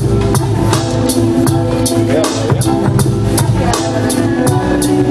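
Electronic beat music played live from a laptop and keyboard controller: a steady drum-machine pattern with sharp hits about two and a half times a second over held synth chords and a deep bass.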